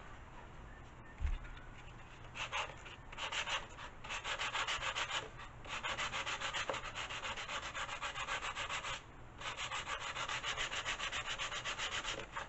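Hand sanding a wooden model-glider fuselage with a sanding block, rounding off its edges: quick back-and-forth rasping strokes, in runs broken by two short pauses.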